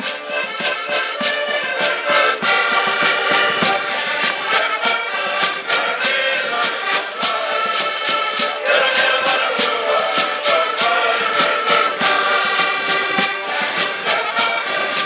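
Portuguese folk ensemble playing a lively tune on several accordions, with a small strummed guitar. A wooden scraper and hand percussion keep a steady fast beat of about four or five strokes a second.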